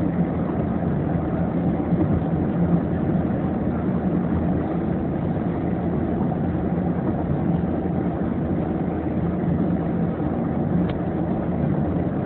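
Steady road and engine noise inside a moving car's cabin, an even low rumble with no breaks.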